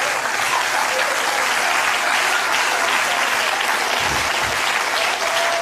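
Studio audience applauding steadily, a dense even clatter of many hands in response to a joke.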